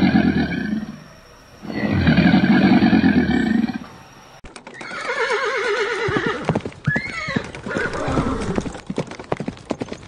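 An alligator bellowing twice, a deep pulsing growl about two seconds each. Then, about four seconds in, a horse neighs with a wavering whinny that slides up and down in pitch, among many sharp knocks.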